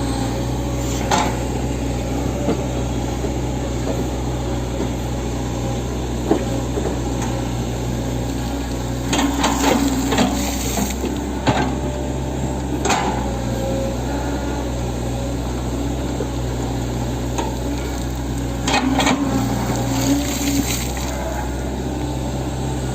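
Hitachi 110M hydraulic excavator's diesel engine running at a steady working drone, with scattered sharp metallic clanks as the machine works soil, bunched about nine to eleven seconds in and again near twenty seconds.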